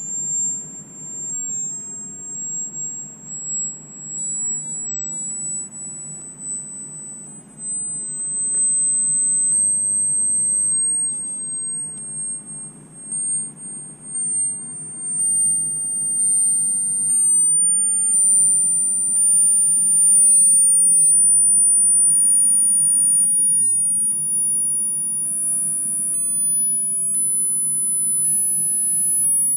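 Hearing-test pure tone: one very high, thin, steady tone that climbs slowly in small steps, about one step every second or two.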